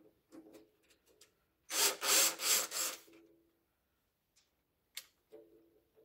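A loud rasping scrape about two seconds in, lasting about a second in a few pulses, amid light knocks and rubs. It is the sheet-metal furnace case and tools being handled on a wooden workbench.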